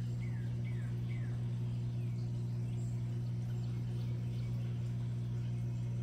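Wild birds calling over a constant low hum. A short downward-sliding chirp repeats about twice a second in the first second or so, then comes more sparsely. Under it runs a steady low hum, which is the loudest sound.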